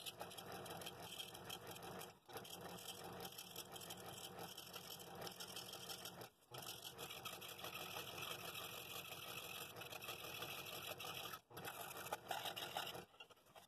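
Scroll saw running with a spiral blade, cutting a curved slot through cherry wood; the sound breaks off briefly three times and stops shortly before the end.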